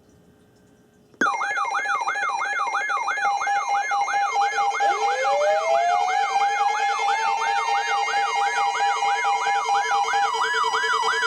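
Sirens start suddenly about a second in: a fast, repeating up-and-down wail over a steady tone, joined about four seconds later by a second siren winding up from low to a steady high pitch.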